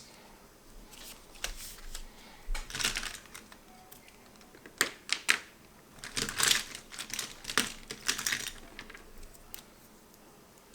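Light, irregular clicks and short scratchy rustles of paper and markers being handled on a table.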